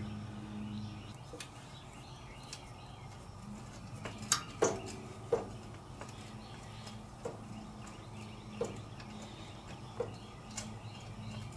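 Pliers clicking and tapping against a metal stud on a Kohler CV15S engine as the stud is threaded back in: a handful of sharp, short metal clicks at uneven intervals, starting about four seconds in, over a steady low hum.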